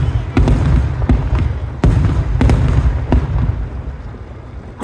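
Aerial fireworks shells bursting: several sharp bangs in the first three seconds or so over a continuous low rumble of further explosions, growing quieter near the end.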